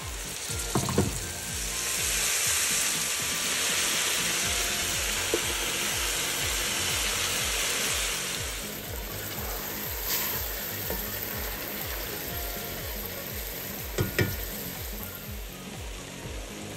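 Vegetables sizzling in hot oil in a large steel pot as they are tipped in, a loud sizzle that eases off after about eight seconds into a quieter frying hiss. A metal spoon knocks against the pot a couple of times.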